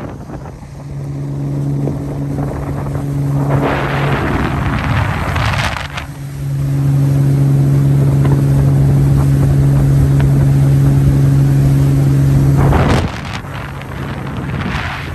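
A boat's motor running under way, a steady low hum, with wind buffeting the microphone in gusts. The hum drops out for a couple of seconds about four seconds in and stops suddenly near the end.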